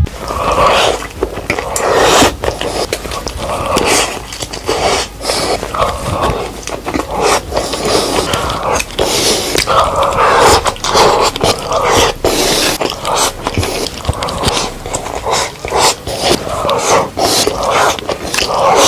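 A person eating a katsudon (pork cutlet and egg rice bowl) close to the microphone: wet chewing and mouth smacking, irregular, with many sharp clicks.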